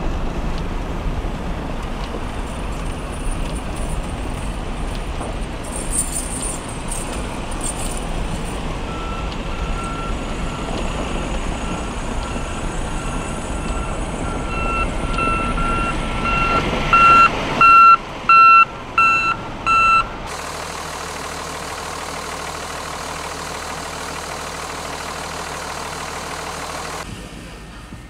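Low, steady rumble of a heavy truck, with a backup alarm beeping repeatedly. The beeping grows louder and ends with several loud beeps about eighteen to twenty seconds in, followed by a steady hiss.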